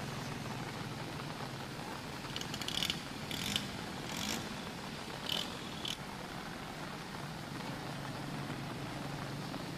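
Steady rain falling on a street, with five short clattering noises between about two and six seconds in.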